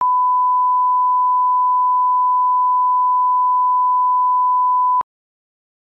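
Broadcast colour-bar line-up tone: one steady, unwavering pure beep that cuts off suddenly about five seconds in.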